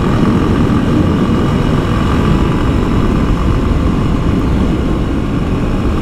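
Honda XRE 190's single-cylinder engine running steadily while the motorcycle cruises at road speed, under heavy wind buffeting on the camera microphone.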